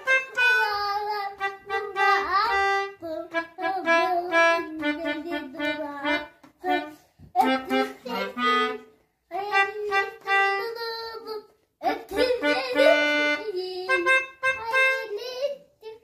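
A melodica played through its mouthpiece tube: a simple melody of single held notes in short phrases, with brief pauses between them.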